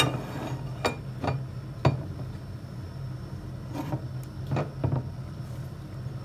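Glass electric kettle running, a steady low rumble as the water boils. Several light knocks and clinks come over it as a ceramic mug is handled on the counter.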